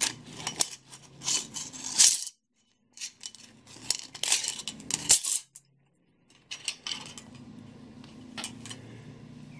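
Steel clock mainspring being unwound by hand out of its brass barrel: the coils scrape and clink against the barrel in three spells of rattling, with short pauses between.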